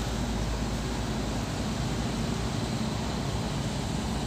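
Diesel engine of a Hino Dutro sand dump truck running steadily as it approaches on a gravel road, with motorcycle engines mixed in.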